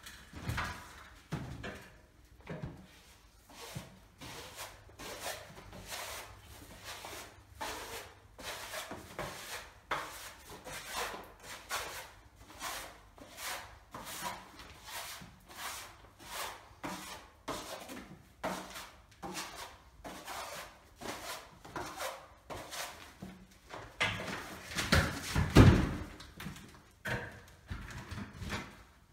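Steel filling knife scraping filler across a wall in repeated smoothing strokes, about one or two a second, with a heavier knock and scrape a few seconds before the end.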